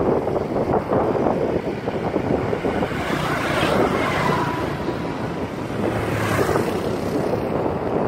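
Wind rushing and buffeting over the microphone of a phone held by a moving cyclist, a loud, steady, gusting roar.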